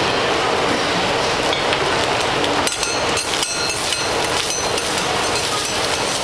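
Egg sizzling on a hot steel flat-top griddle while two metal spatulas scrape and clack against the plate, with a few sharp clinks around the middle.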